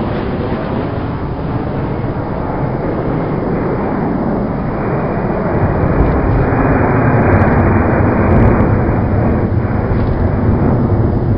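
Airliner cabin noise on the approach to landing: a steady rush of engine and airflow noise. It grows louder and deeper about six seconds in.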